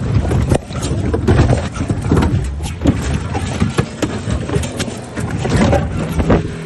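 Loud handling noise from a phone jostled against clothing: irregular rumbling, rubbing and sharp knocks on the microphone.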